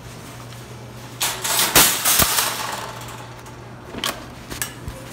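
Metal shopping carts rattling, with a burst of clatter and two sharp clanks about a second and a half in, then a few lighter knocks near the end, over a steady low hum.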